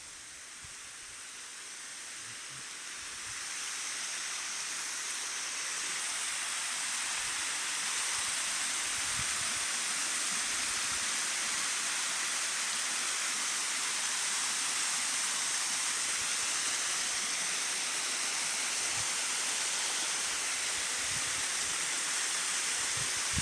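Waterfall rushing, its steady noise growing louder over the first few seconds and then holding level.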